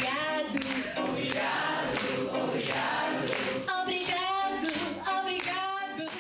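Several voices singing together, with hand clapping.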